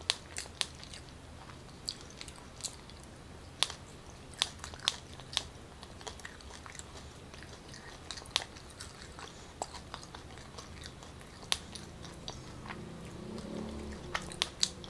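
A person chewing a mouthful of takoyaki (battered octopus ball) with the mouth closed: soft, irregular wet clicks and smacks, spread out with a second or more between them.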